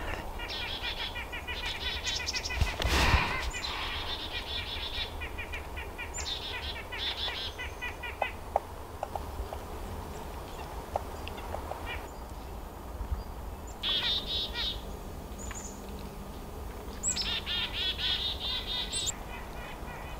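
Black-capped chickadees giving their dee-dee-dee mobbing calls in repeated quick runs, harassing a roosting barred owl. There is a short thump about three seconds in.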